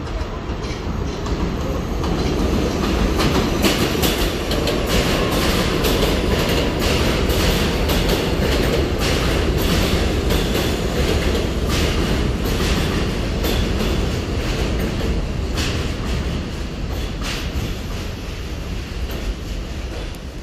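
An R68A New York City subway train running into an elevated station: a low rumble builds over the first couple of seconds, then wheels clack rapidly over the rail joints as the cars pass, and the sound eases off near the end.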